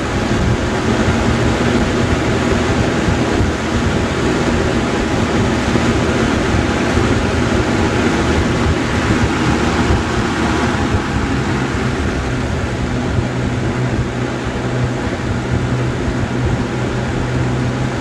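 1990s Galaxy box fan running, its metal-frame motor driving the blade and pushing a steady, loud rush of air over a low motor hum.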